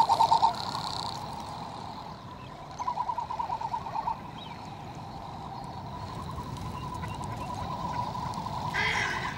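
Male frigatebird courtship call, given with its scarlet throat pouch inflated: a rapid pulsing warble. One call ends just after the start, and another lasting over a second comes about three seconds in.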